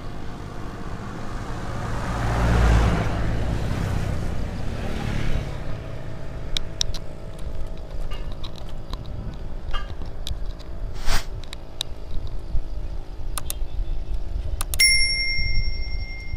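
Road and wind noise from riding bicycles, with a vehicle passing about two to five seconds in. Scattered sharp clicks follow, and near the end a bell rings once with a clear ding that lasts about two seconds.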